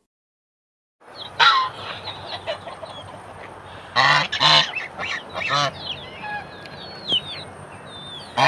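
Canada geese honking again and again, starting about a second in, with the loudest honks about a second and a half in, around four to four and a half seconds, and near the end. Thin, high bird calls chirp in the gaps between the honks.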